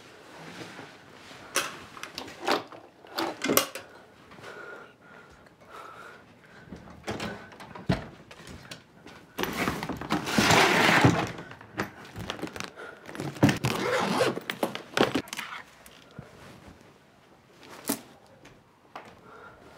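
Handling noises: a series of knocks, thuds and rustles as a woman gets out of bed and moves about, then a long scraping rustle about halfway through as a hard-shell suitcase is pulled down off the top of a wardrobe, the loudest part. After it come a few more knocks and clothes being handled as the suitcase is packed.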